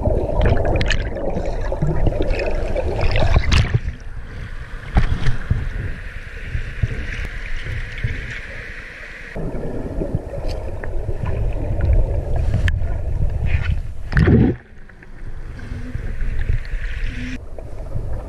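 River current heard underwater: a dense low rumble of rushing water with bubbling and scattered sharp clicks and knocks.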